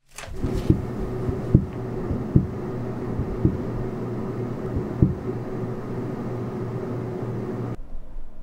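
Fridge-freezer humming steadily, with five muffled low thumps at irregular intervals in the first five seconds. The hum cuts off abruptly near the end.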